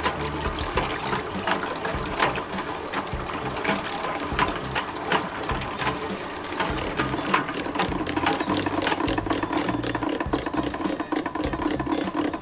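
Agitator of a Shinagawa Kogyosho stainless cooking kettle running, its wooden scraper paddles churning and splashing water in the bowl, with many short splashy clicks. Background music plays underneath.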